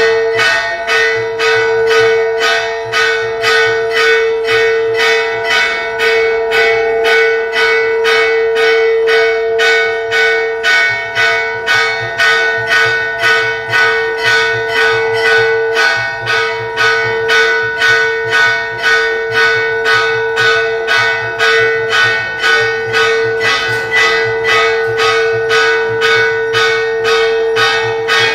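Temple bell rung continuously for aarti, struck about twice a second in an even rhythm. Its metallic ring sustains between strikes as a steady tone.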